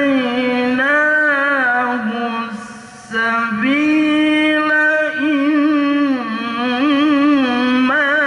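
A man reciting the Qur'an in the melodic tilawah style into a microphone, holding long ornamented phrases that rise and fall. He breaks off briefly for breath about three seconds in, then starts a new phrase.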